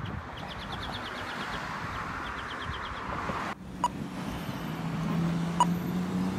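Road traffic noise with two bouts of a bird's rapid, repeated calls. About halfway through, the sound cuts abruptly to a steady engine drone with a sharp click roughly every two seconds.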